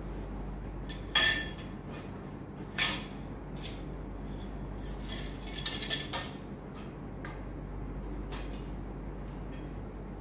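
Metal tubes of a wardrobe-closet frame clinking and knocking against one another as they are handled and fitted together: a handful of sharp clinks, the loudest about a second in.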